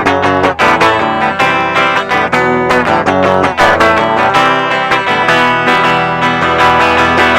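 Instrumental guitar music: plucked and strummed guitar notes in quick succession, with an effects-processed electric guitar tone.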